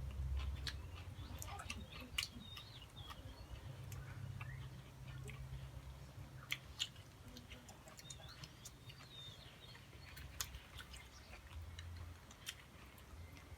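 Close-up eating sounds: a person chewing grilled frog, with irregular sharp clicks and mouth smacks.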